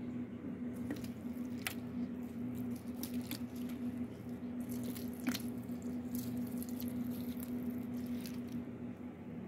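Water poured from a plastic watering can into a potted plant's soil, with scattered small clicks and crackles as the soil soaks it up. A steady low hum sounds alongside.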